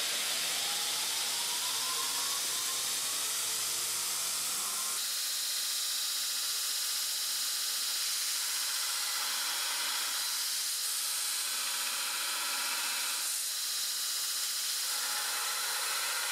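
Ameribrade Fastback 2x72 belt grinder running, its motor and belt whine rising in pitch in the first second or so as the variable speed is turned up, then a steady high-speed belt hiss. Near the end a steel bar is ground against the belt.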